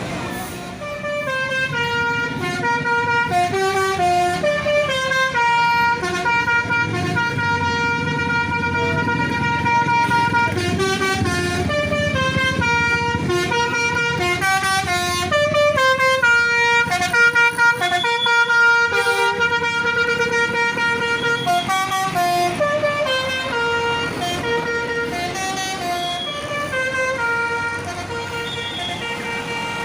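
Bus telolet horn, a multi-tone musical air horn, playing a long melody of stepped notes, several sounding together, over the low running of the bus's engine.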